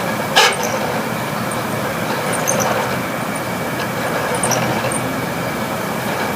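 Failing room air conditioner running with its compressor in overload and its fan blades sloshing through water in the unit, a steady mechanical din with a faint high whine. A sharp knock sounds about half a second in, with scattered faint ticks after it.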